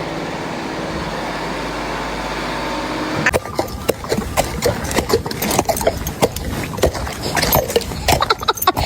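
A steady hum, then from about three seconds in a run of irregular sharp knocks and clatters.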